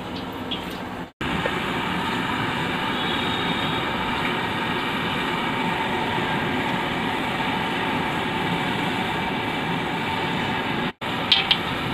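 LPG gas burner running on high under a wok of heated frying oil, a steady rushing flame noise. It breaks off abruptly twice, about a second in and near the end.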